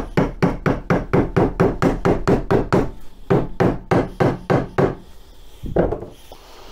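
Rapid, even knocking at about four or five knocks a second on an MGB B-series piston and connecting rod held in a vise, as a seized gudgeon pin is worked free. The knocking stops about five seconds in, and one duller thud follows.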